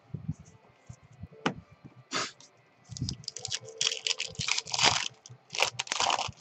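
Crinkly wrapper being handled, giving bursts of crinkling and crackling that start about two seconds in and grow denser toward the end, after a few light clicks of cards being handled.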